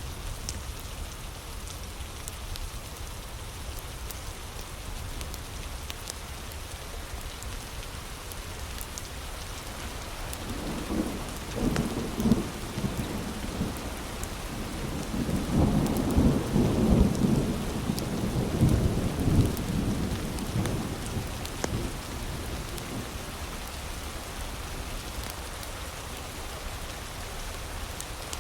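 Steady heavy rain with a rumble of thunder that builds about ten seconds in, is loudest in the middle and dies away a little after twenty seconds.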